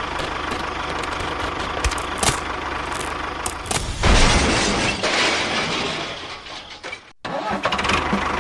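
The small motor of a DIY mini tractor runs with a steady hum. About four seconds in, a louder rushing, rattling noise covers it for a couple of seconds, then the sound cuts off abruptly near the end.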